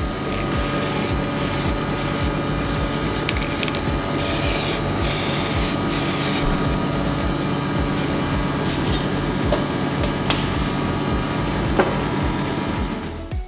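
Aerosol spray can hissing onto a bowl turning on a wood lathe: four short squirts, then two longer sprays that stop about six and a half seconds in. Under it the lathe hums steadily.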